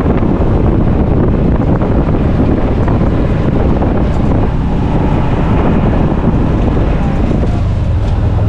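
Off-road vehicle engine running as it drives along a dirt trail, mixed with wind buffeting the microphone. A steady low hum comes in near the end.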